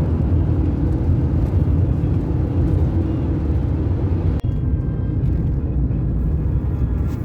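Steady, loud low rumble of a car driving on the road, with a brief dropout about four and a half seconds in.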